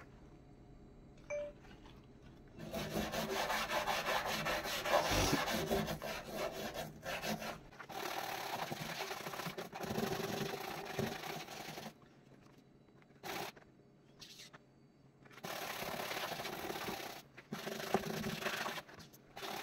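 Small stiff-bristled brush scrubbing a greasy black stovetop around the burners, the grease softened by oven cleaner. The scrubbing starts about three seconds in, stops for about three seconds around the middle, then picks up again.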